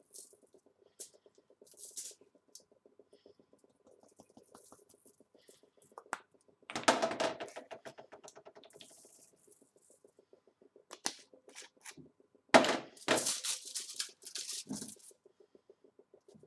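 Aluminium foil crinkling and rustling as it is handled on a cutting board, in two louder bursts about seven and thirteen seconds in, with small clicks and taps between. A faint steady low buzz runs underneath.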